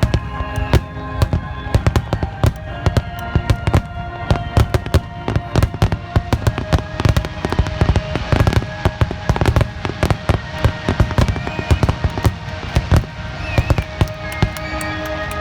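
Fireworks finale barrage: a dense, continuous rapid-fire run of shell bursts and crackling bangs, several a second. Music plays steadily underneath.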